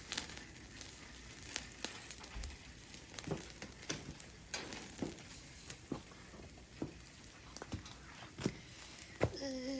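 Meat sizzling over an oak-wood fire: a steady hiss with scattered sharp pops and crackles. A brief pitched sound comes in near the end.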